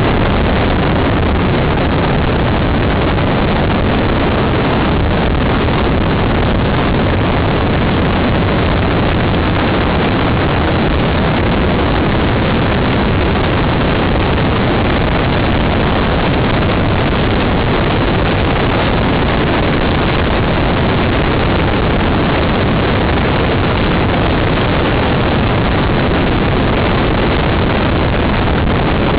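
Steady wind rush on a jacket-mounted camera's microphone while riding a motorcycle, with the motorcycle's engine running beneath it at an even level.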